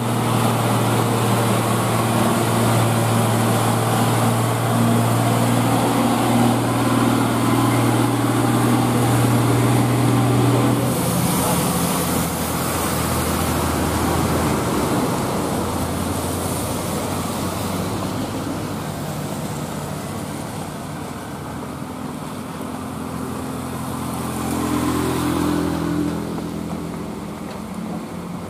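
Heavy Hino truck diesel engine pulling steadily under load up a steep incline, holding a constant note. About eleven seconds in the sound changes to another truck's diesel, a Mitsubishi Fuso, running lower, with a steady hiss of tyres on a wet road.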